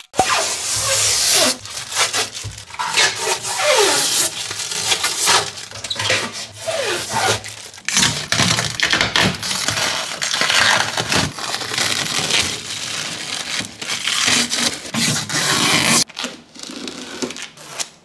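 Protective plastic film being peeled off the inside of a new refrigerator: continuous crackling and tearing of thin plastic with a few short squeaks. It turns quieter about two seconds before the end.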